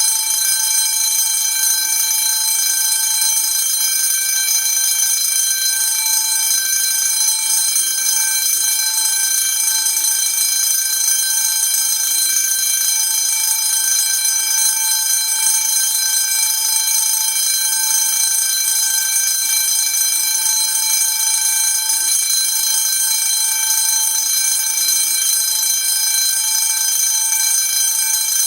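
A 10-inch fire alarm bell ringing continuously, its gong sounding in a steady, unbroken ring with no pauses.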